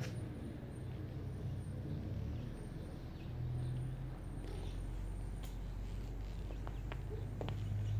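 Low steady outdoor rumble, with a few light footsteps on concrete in the second half.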